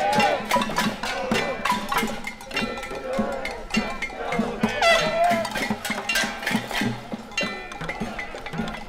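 Marchers banging on metal frying pans and pots with wooden mallets: a rapid, irregular clanking, some strikes ringing briefly, with voices shouting among them.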